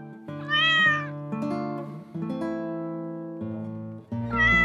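A cat meowing twice, once about half a second in and again near the end, each call rising and falling in pitch. Plucked-guitar background music plays underneath.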